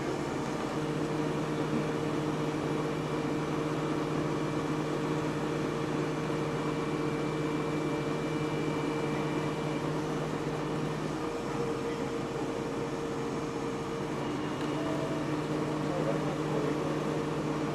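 A large engine idling, a steady low hum that holds an even pitch; its lowest note drops out about eleven seconds in and returns a few seconds later.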